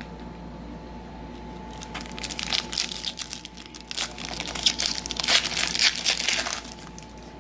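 Crinkling of a trading-card pack's foil wrapper being handled, in a run of uneven crackles from about a second and a half in until shortly before the end.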